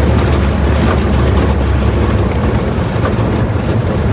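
A manual-transmission car on the move: engine and road noise make a steady low rumble.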